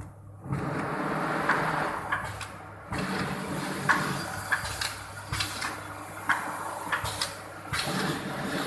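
Vertical form-fill-seal pouch packing machine running while it packs turmeric powder: a steady motor hum and mechanism noise with repeated clacks of the sealing jaws and cutter, a louder clack about every two and a half seconds as each pouch is sealed and dropped.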